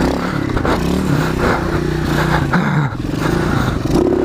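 Pit bike engine revving up and down as the bike is ridden down a slope and across rough dirt, its pitch rising and falling with the throttle.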